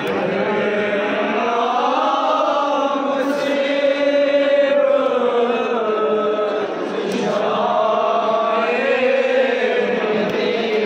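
Men's voices chanting a Muharram mourning lament for Imam Hussain, in long held notes that slowly rise and fall.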